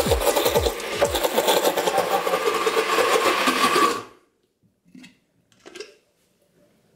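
Countertop blender grinding peanuts into peanut butter, about five and a half minutes into blending, then switched off about four seconds in, the noise cutting off abruptly. A couple of faint handling sounds follow.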